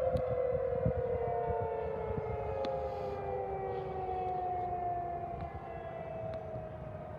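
Outdoor warning sirens, among them a Federal Signal 2001-SRN, winding down after being shut off at the end of a test. Two or more tones slowly fall in pitch and fade.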